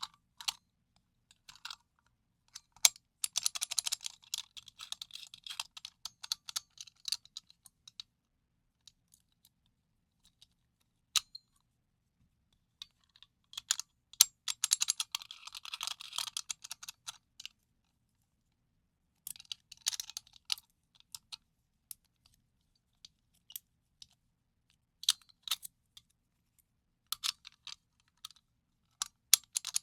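Light clicking and rattling of a dial combination padlock being worked with a shim. The clicks come in several bursts of a few seconds each, with short pauses in between.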